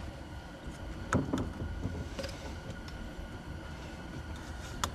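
A few light clicks and knocks of tools and suspension parts being fitted at the front knuckle, about a second in, after two seconds and near the end, over a low steady rumble.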